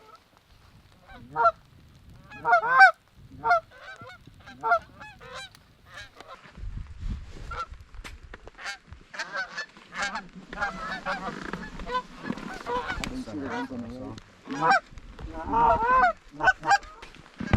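Geese honking: short honks and clucks, scattered at first, then coming thick and overlapping in the second half.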